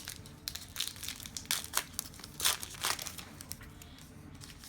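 A trading-card pack wrapper being torn open and crumpled, with a run of irregular sharp crinkles and crackles, busiest in the first three seconds.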